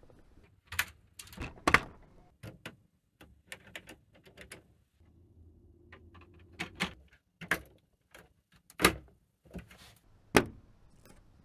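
LEGO Technic plastic parts clicking and clacking as pins, beams and frames are handled and pressed into place by hand: a series of separate sharp snaps and knocks.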